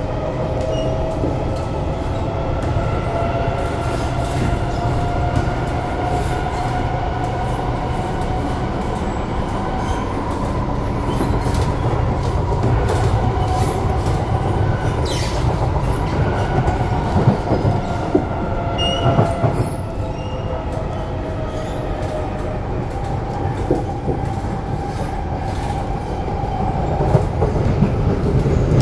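An SMRT C751B metro train running, heard from inside the carriage: steady wheel-and-track rumble under a motor whine whose pitch slowly rises and falls with speed. About halfway through there is a brief high squeal that falls in pitch.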